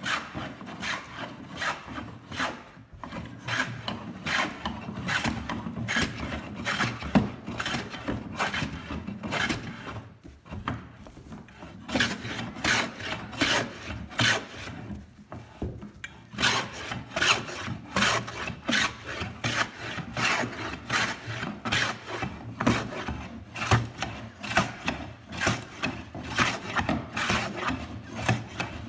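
Metal hand plane shaving plywood in quick back-and-forth strokes, about two a second, each a short rasping hiss as a curl of wood lifts off. There are a couple of brief pauses between runs of strokes.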